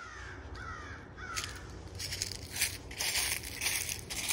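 A crow cawing three times in quick succession, each caw a short harsh falling note. From about two seconds in, dry fallen leaves crunch underfoot in loud irregular bursts, the loudest sound.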